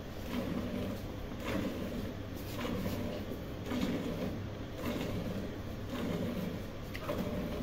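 Jets of milk squirting into a steel bucket as a cow is milked by hand, a swishing sound coming in a steady rhythm of strokes.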